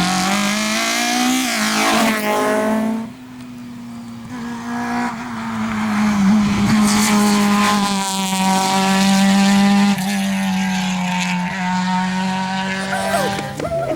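Rally car engine running at high revs on a stage. The pitch climbs in the opening seconds and the sound drops away briefly around three seconds in. It then holds a high, nearly steady note for several seconds before changing just before the end.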